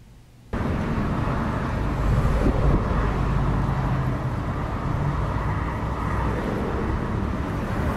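Steady rumble of jet airliner engines, starting suddenly about half a second in.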